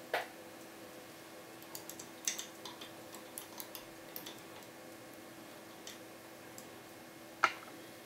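Small, scattered metallic clicks and ticks of a hook pick and tension wrench working in the keyway of a TESA TE5 brass euro cylinder as it is picked. The clicks come in a busy run in the middle, with a single sharper click near the end.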